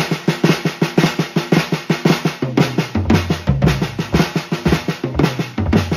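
Drums playing the Swiss Army triplets rudiment (flam-tap triplets) at medium tempo: a steady, even stream of snare strokes. Lower, deeper drum hits join in about halfway through.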